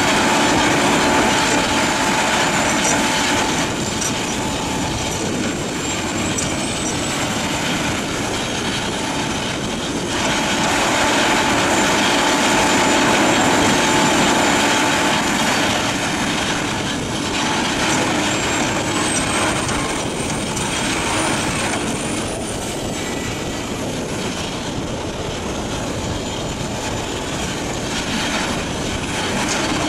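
Morbark HT1684 Predator tracked shredder running under load, its 500 hp diesel engine and slow-speed rotor grinding and crunching waste wood as it is fed. A thin, high whine rises and wavers a few times over the steady machine noise.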